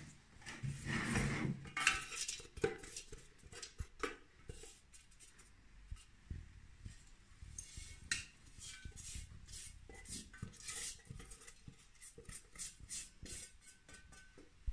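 Thermomix spatula scraping and tapping inside the stainless-steel mixing jar as chopped almonds are emptied out of it into a small bowl. It is an irregular run of light scrapes and clicks, busiest in the first couple of seconds.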